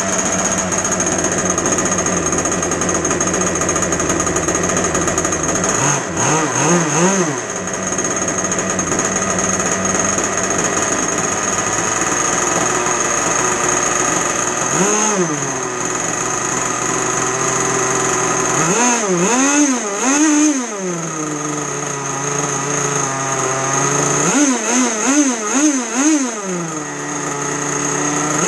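Zenoah two-stroke gas RC boat engine running on the bench while being bench-tuned, well short of full RPM. Its throttle is blipped in short groups several times, the revs rising and dropping straight back each time.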